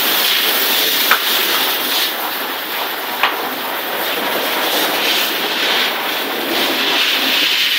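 Garden hose spraying a steady jet of water onto a hard surface, a constant rushing hiss with a couple of faint clicks.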